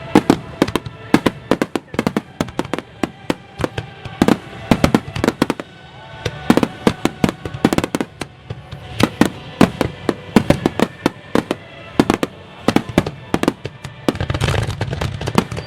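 Fireworks finale barrage: aerial shells bursting in rapid succession, several sharp bangs a second with echoing booms after them.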